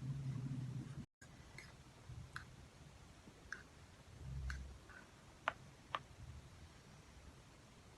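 Quiet eating sounds from a cup-noodle mukbang: sparse mouth clicks and light utensil taps with soft chewing. Two sharper clicks come about half a second apart past the middle, and there is a brief cutout about a second in.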